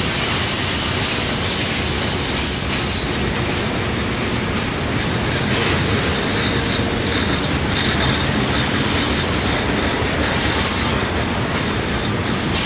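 Freight train boxcars rolling past on a curve: a steady rumble and rattle of steel wheels on the rails, with a faint high squeal of wheel flanges at times.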